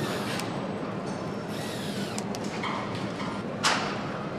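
Motorcycle assembly-line din: a steady machinery hum with scattered hisses and clicks, and one short, sharp burst of noise a little after three and a half seconds in.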